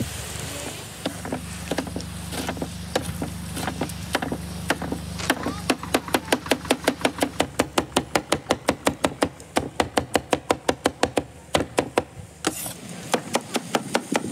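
Cleaver chopping roasted peppers and eggplant on a wooden cutting board, the blade knocking on the board. The strikes are scattered at first, then settle into a fast, even run of about four chops a second, with a short pause near the end before chopping resumes.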